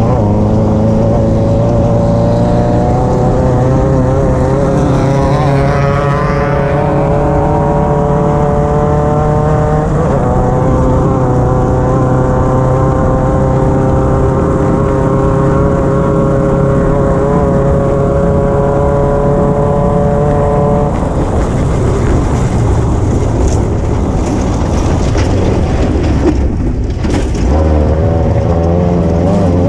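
Off-road race car's engine, heard from on board at speed. Its pitch climbs slowly, dips briefly about ten seconds in and climbs again. About two-thirds of the way through it turns rough and uneven, with a short drop near the end before picking up again.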